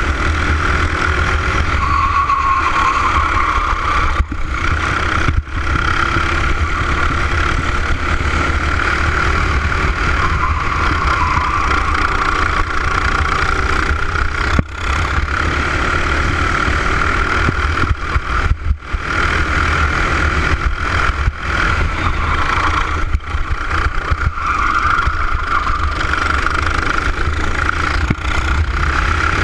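Racing kart engine at racing speed, picked up by a camera mounted on the kart: a high, wavering engine note that rises and falls through the corners, broken by several brief sudden dips.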